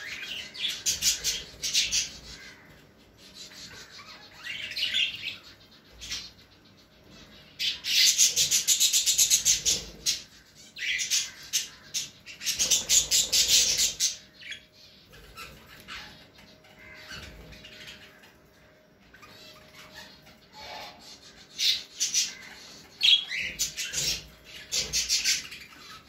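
Caged budgies and cockatiels chirping and chattering in bursts. The loudest are two long stretches of fast, rattling chatter in the middle, with sharp single chirps near the end.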